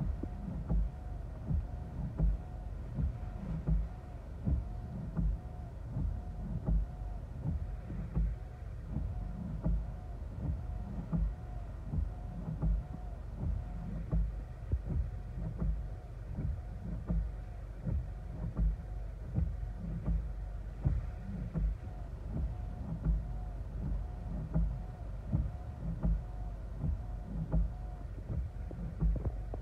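Car windshield wipers sweeping steadily, heard from inside the car, with a regular low thump roughly every second over a steady low rumble of wind and rain on the car.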